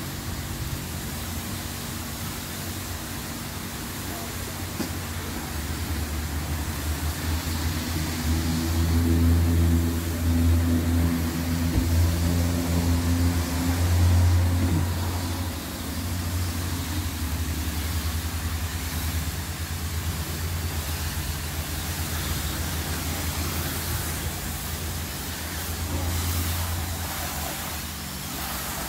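A motor running with a steady low hum that swells louder for several seconds in the middle, then settles back, over a steady hiss.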